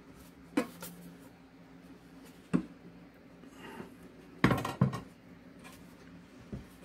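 Bread machine's metal bread pan and its wire handle knocking and clanking against the machine as the pan is worked loose and lifted out. A few sharp knocks, the loudest a close pair about four and a half seconds in.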